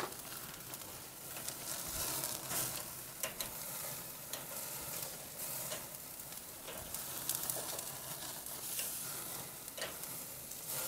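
Ribeye steaks sizzling on a hot charcoal grill grate, a steady hiss with frequent sharp crackles and pops as flames flare under the meat.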